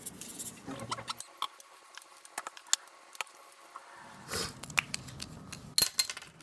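Sharpie marker scratching and tapping across a sticky note in quick short strokes, with a few louder scratches near the end.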